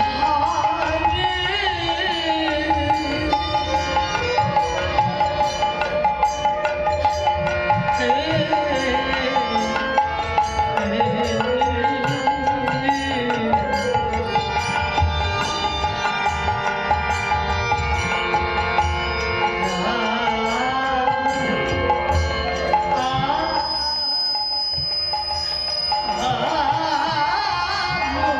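Devotional kirtan music: hand-drum strokes keep a busy rhythm under sustained, held tones and a winding melody that glides up and down. The drumming drops out for a moment near the end, then comes back.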